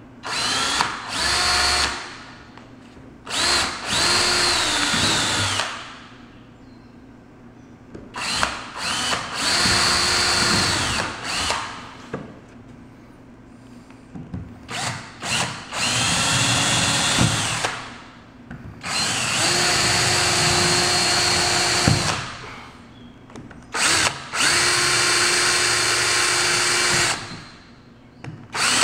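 Cordless drill boring pilot holes through a hardwood oak threshold, run in repeated bursts of a few seconds with short pauses between. Each run starts with a rising whine and then holds steady while the bit cuts; the holes are pre-drilled so the oak will not split when the finish nails go in.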